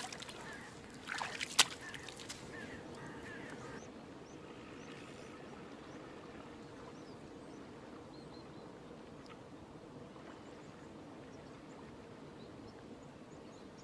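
A barbel released by hand into the river: splashing and sloshing at the water's edge, with one sharp splash about a second and a half in. After that, a steady faint outdoor hush with a few faint bird calls.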